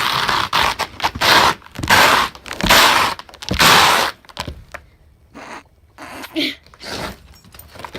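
Loud crunching scrapes on a crust of frozen rain, about five bursts roughly a second apart, then much quieter.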